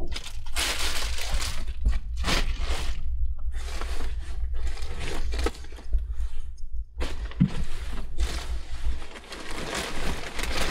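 Plastic packaging crinkling and bags and clothing being rummaged through: irregular rustling and crackling over a steady low hum.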